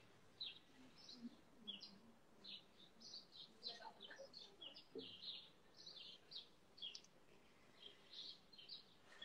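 Birds chirping faintly, short high chirps repeating about twice a second.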